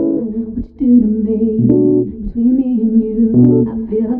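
Background music: a singing voice over plucked guitar.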